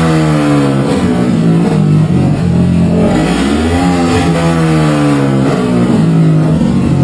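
Yamaha YFZ450 quad's single-cylinder four-stroke engine running loud through a GYTR performance exhaust, blipped twice: the pitch falls back from a rev near the start, then climbs and drops again midway, settling to a steady run between.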